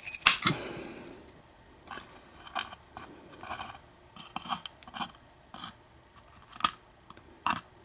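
Small metal lock pins and tools clicking and scraping as a pin-tumbler lock cylinder is taken apart by hand. A quick run of sharp clicks at the start, then scattered single clicks.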